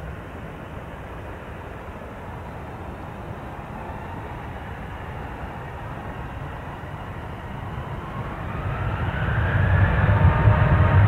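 Boeing 737-800's CFM56 jet engines, a steady distant noise that grows much louder in the last few seconds, with a low rumble building and a whining tone rising in pitch as the airliner draws nearer.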